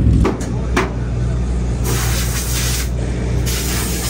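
Dirt late model race car engine running steadily, dropping in level just after the start, with two sharp clicks in the first second. Two bursts of hiss follow, each about a second long.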